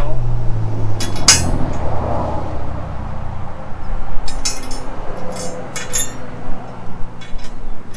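Steel clinking and clanking as a fabricated steel cross member and its loose bolts are shifted into place on an engine cradle: a sharp clank about a second in, then a cluster of clinks about halfway through. A steady low hum runs underneath.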